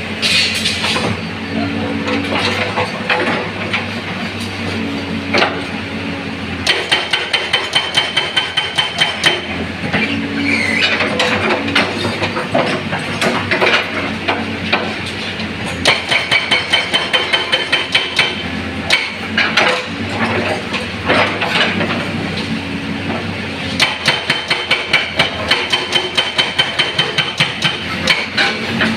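Excavator-mounted hydraulic breaker hammering a concrete road: three runs of rapid blows, about six or seven a second and a few seconds each, over the steady running of the excavator's engine.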